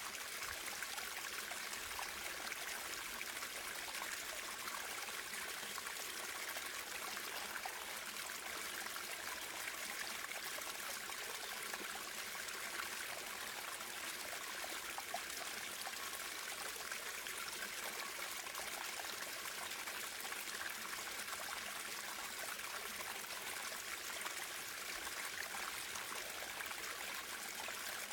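Running water of a small stream, trickling and splashing steadily without a break.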